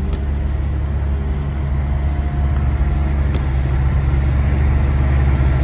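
Steady low rumble of a car's engine and tyres heard inside the cabin while driving on a snow-covered road, growing a little louder about halfway through.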